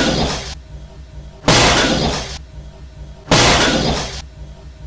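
A shattering crash, like breaking glass, repeated about every two seconds as a looped sound effect, each crash dying away over about a second.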